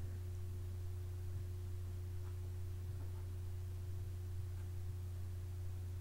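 Steady low electrical hum with a faint higher steady tone above it: room tone.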